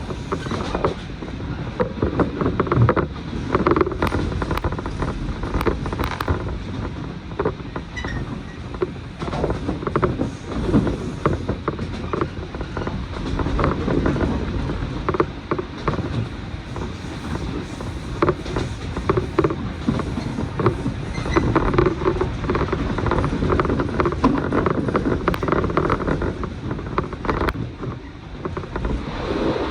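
Electric train running on the line, heard from inside the carriage: a steady rumble of wheels on rail with frequent short clicks and creaks from the car body.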